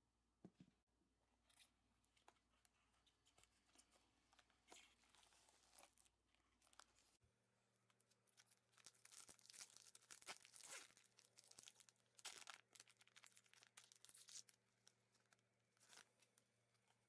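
Plastic packaging being handled and torn: light rustles and ticks at first, then a trading card pack's plastic wrapper torn open and crinkled, with a dense run of crisp crackles after the middle.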